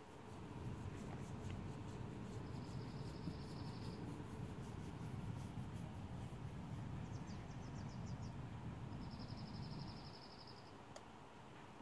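A low rumbling that stops about ten seconds in, under insects calling outdoors: two short high pulsed trills several seconds apart, with a quicker run of high ticks between them.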